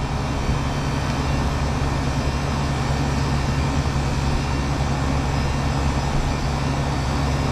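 Walk-in cooler's condensing unit running: a steady hum from the compressor with the even drone of the condenser fan.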